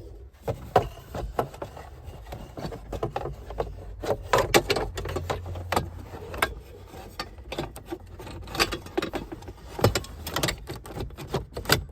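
A metal rail being refitted by hand: irregular clinks, knocks and rattles of metal against plastic trim, with some rubbing, scattered throughout.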